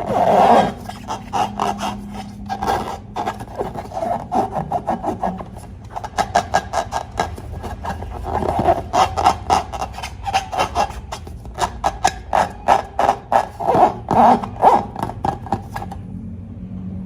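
Slime being squished and worked by hand, making dense runs of fast crackling clicks with short pauses between spells.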